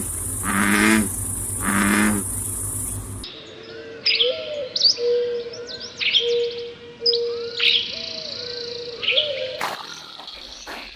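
Birds chirping in short, sharp notes over a steady low whistling tone. This is preceded in the first few seconds by three evenly spaced pitched calls from another animal, and followed near the end by a few sharp clicks.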